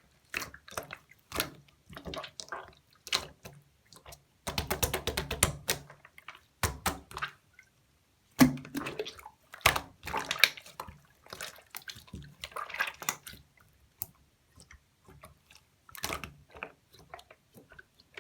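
Hands squishing and pressing slime, giving irregular wet clicks and pops, with a dense run of rapid crackling bubble pops about five seconds in.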